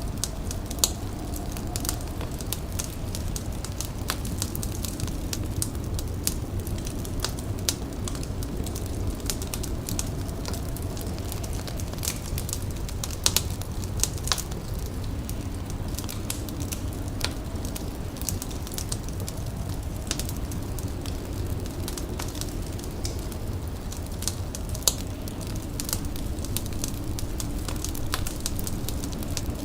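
Fire crackling steadily, with irregular sharp pops and snaps over a continuous low rush.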